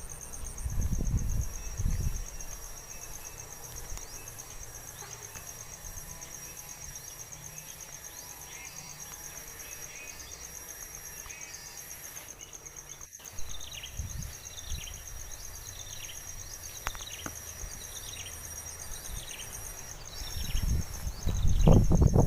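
An insect's steady, high, pulsing trill, cricket-like, with a series of short falling chirps from about halfway through, around two a second. Low rumbles come briefly near the start and swell near the end.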